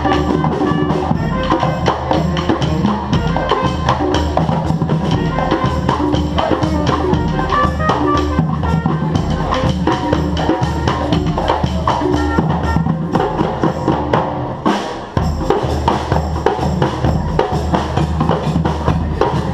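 A live street band playing a rhythmic tune: drums and percussion under pitched instruments carrying a bass line and melody. There is a brief break about three-quarters of the way through before the groove comes back in.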